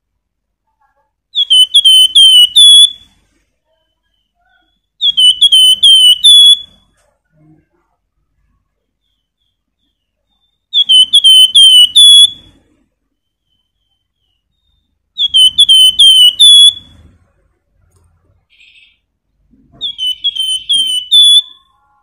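Caged flamboyan songbird singing: five short, loud phrases a few seconds apart, each a quick run of four or five sharp, hooked whistled notes.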